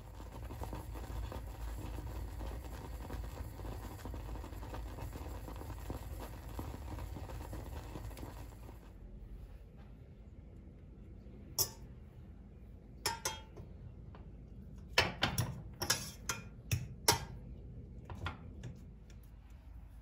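Oats and milk simmering in a stainless steel saucepan, a steady bubbling hiss that cuts off about halfway through. After a short lull comes a string of sharp metallic clinks of a spoon against the pan, with the loudest cluster about three-quarters of the way in.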